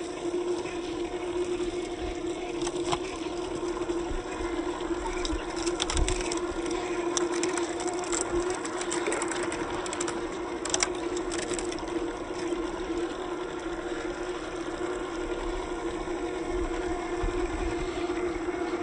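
Steady whine of a 1/10 scale RC crawler's electric motor and gearbox (Hobbywing Fusion) as it drives a Boom Racing BRX02 Land Rover Series III through mud. In the middle, tyres splash and crackle through a shallow puddle and wet mud.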